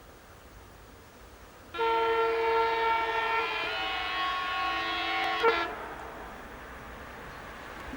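A train's horn sounds a multi-note chord for about four seconds, its notes shifting partway through, and cuts off abruptly. A steady rushing noise follows.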